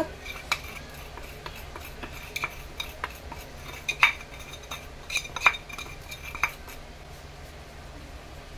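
Stainless steel bowl and plate clinking, a small steel bowl knocking and scraping against a large steel plate as milk powder is tipped out of it. About eight separate light clinks with a short ring, the loudest about four and five and a half seconds in, then they stop.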